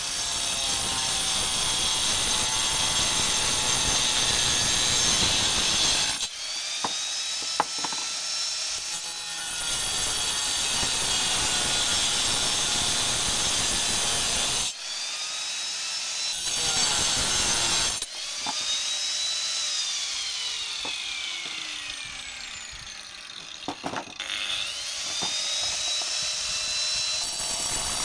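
Electric angle grinder grinding and cutting into steel chain links. The motor's whine rises and falls with the load, and it breaks off several times and spins back up.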